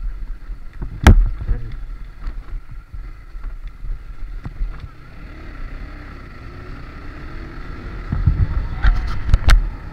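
Motorcycle riding over a broken, gravelly road: steady engine and wind rumble with sharp knocks as the bike jolts over bumps, the loudest about a second in and a cluster of several near the end.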